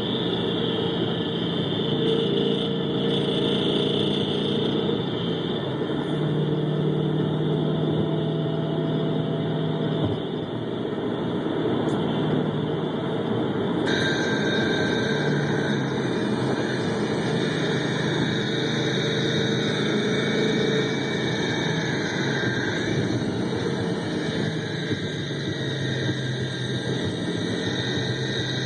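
2011 Mustang GT's 5.0 V8 engine running, heard through amplified microphones mounted on the cylinder banks, with a rapid knocking from inside the engine that the owner of a car with the same noise suspects is piston slap. About halfway through the sound shifts abruptly as the feed switches to another bank's microphone.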